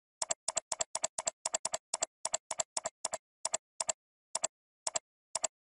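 Computer mouse button clicked about eighteen times in a row. Each click is a close press-and-release pair, quick at first and slowing to a click every half second near the end.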